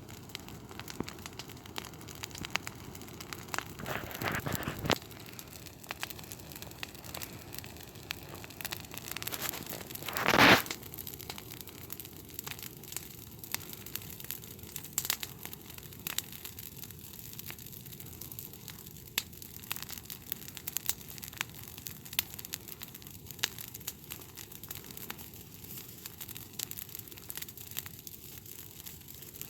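A dying campfire's embers crackling and popping with irregular sharp clicks, with one louder crackle about ten seconds in.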